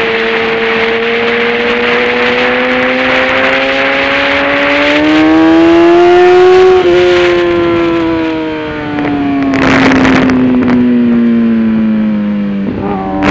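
Sport motorcycle engine pulling hard on a race track, its note rising steadily for about seven seconds. It breaks at a gear change, then falls slowly as the bike slows into the next corner. Wind rushes over the bike throughout, with a loud gust of wind noise about ten seconds in.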